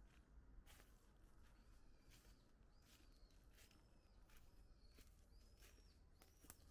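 Faint footsteps crunching through fallen leaves, about one step a second, with a small bird giving short, repeated chirps between the steps.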